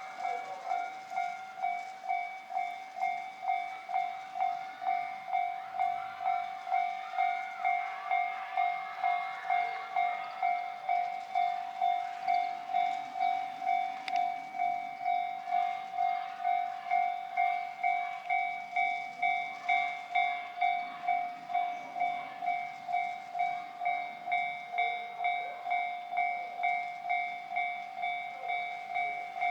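Japanese railway level-crossing alarm sounding steadily, an electronic ding about twice a second. Faint rail and engine rumble sits underneath.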